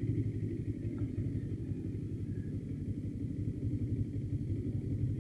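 CFMoto NK motorcycle engine idling steadily, a low, even rumble of firing pulses.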